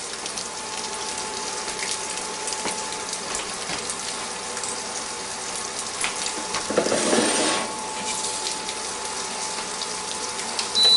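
An egg frying in butter in a Copper Chef square pan on an induction cooktop: a steady crackling sizzle that grows louder for a moment about seven seconds in. Near the end a short high beep sounds from the cooktop's touch panel as it is switched off.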